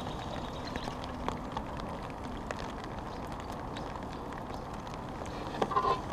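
Rain pattering steadily on a fishing umbrella, with scattered small drop ticks. A short cluster of louder knocks comes near the end.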